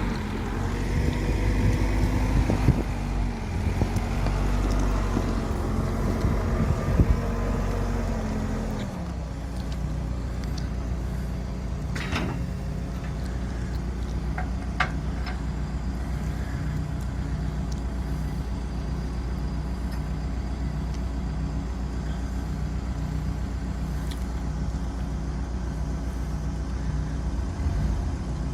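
A motor vehicle's engine running, its pitch shifting over the first nine seconds or so, then settling to a steady idle with an even pulse. Brief hisses or clicks can be heard, the clearest about twelve seconds in.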